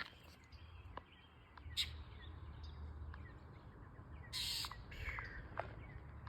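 Outdoor birds giving a few short, scattered chirps, with two brief bursts of hiss-like noise, the longer one about four and a half seconds in, over a low steady rumble.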